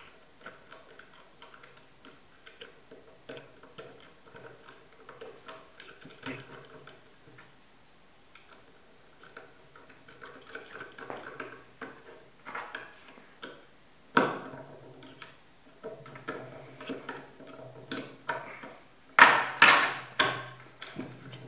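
Small metal clicks and clinks as the U-bolt, its nuts and the pull chain of a Concept2 RowErg handle are fitted back together by hand, growing busier later on, with a sharp knock about two thirds through and several louder clunks near the end.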